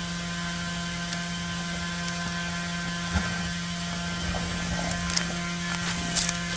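Septic pump truck's vacuum pump, driven off the truck's transmission by a PTO shaft, running with a steady hum while it sucks out the tank. A few small clicks sound around the middle and near the end.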